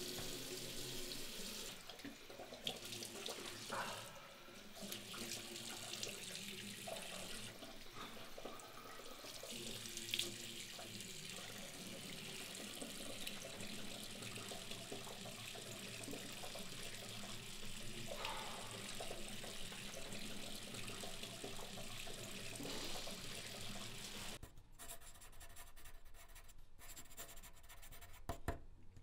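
Water from a bathroom tap running steadily into a sink, with a few brief splashes, stopping abruptly about 24 seconds in.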